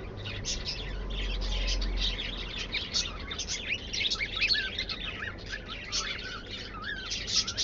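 A group of pet birds, cockatiels among them, chirping and chattering without a break, many short high chirps and small whistled up-and-down calls overlapping.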